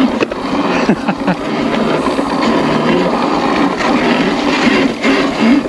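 10 kW electric pit bike ridden over a rough, muddy woodland trail: steady drivetrain rattle and tyre noise with clattering jolts.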